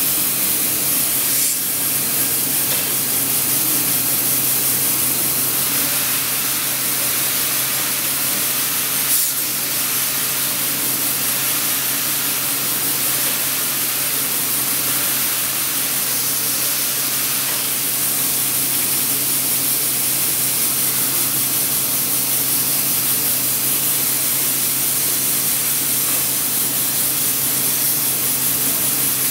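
Homemade brass single-cylinder model steam engine with a large flywheel running on compressed air fed through a plastic hose: a steady hiss of air exhausting from the cylinder, with a steady low hum underneath.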